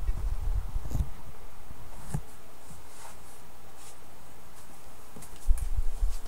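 Handling noise: deep thumps and rubbing in the first second and again near the end, with a couple of light clicks between. The reindeer toy is not singing.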